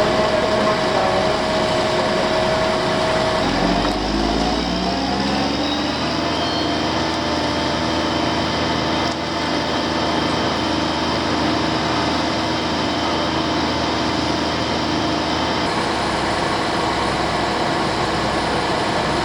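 Concrete truck engine running, speeding up about four seconds in and then holding a steady higher speed as the pour gets under way.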